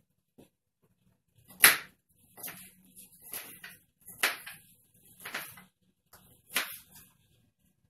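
A kitchen knife chopping garlic on a plastic cutting board: sharp, separate knocks about once a second, the loudest near two seconds in, with fainter clicks between them.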